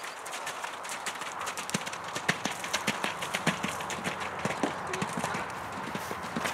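A ridden horse's hooves striking wet sand arena footing, a quick, irregular run of hoofbeats.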